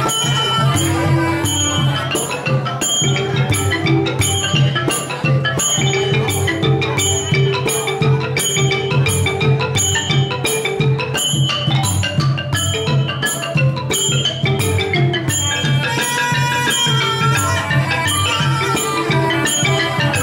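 A Cambodian pinpeat ensemble playing traditional music: roneat xylophones and a gong circle run quick mallet notes over a sralai reed oboe, with percussion keeping a steady beat of about two strokes a second.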